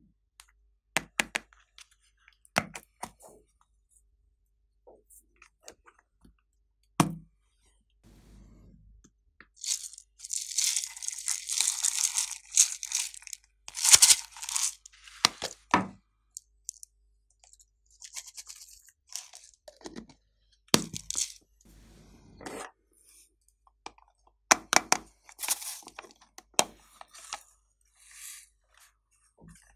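Plastic lids and cases of small add-in containers clicking and snapping as they are opened and handled. A few seconds of dense, high rattling hiss come about ten seconds in, as glitter flakes and sequins are shaken and poured out.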